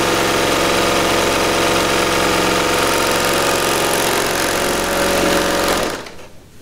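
Bernina L890 overlocker running at a steady speed, stitching a rolled hem through two layers of fabric, then stopping suddenly about six seconds in.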